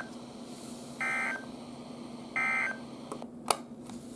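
NOAA Weather Radio's end-of-message SAME data tones: the tail of one short, buzzy digital burst, then two more about a second and a half apart, signalling the end of the alert. They sound over steady radio hiss and hum, and a single sharp click comes about three and a half seconds in.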